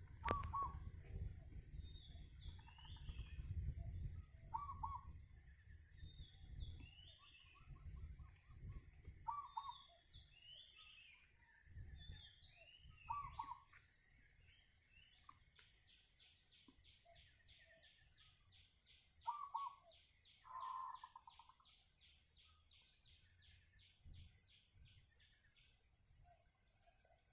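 A zebra dove gives short coos every few seconds, an unusual-sounding voice for the bird. Other small birds chirp higher up, and from about halfway a high, fast trill runs on at about four notes a second.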